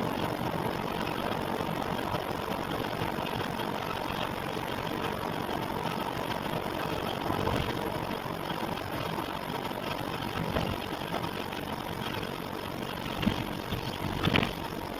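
Steady machine running noise, like an idling engine, recorded as an abnormal noise, with two short knocks near the end.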